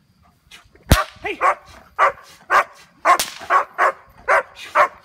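A dog barking repeatedly, about two barks a second, each bark dropping in pitch. A single sharp knock comes just before the barking starts, about a second in.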